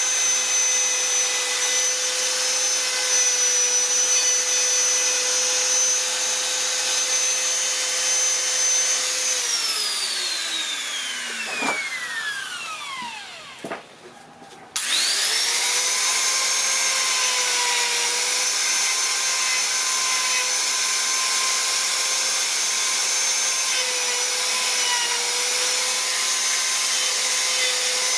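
Electric die grinder with a rotary carving burr running at a steady high pitch as it carves wood. About nine seconds in it is switched off and winds down over several seconds, with a couple of light knocks. About fifteen seconds in it is switched back on, revs up quickly and runs steadily again.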